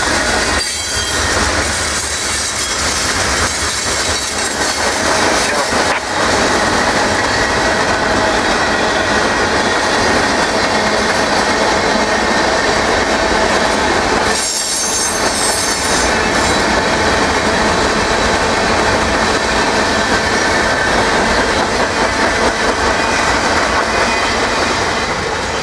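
Freight cars of a manifest train rolling past close by: a loud, steady rumble and rattle of steel wheels on rail, with thin high steady squeal tones from the wheels.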